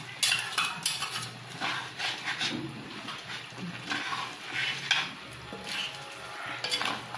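Steel spoon scraping and clinking against a wok as pieces of turkey meat are stirred and turned while frying, in irregular strokes about every half second.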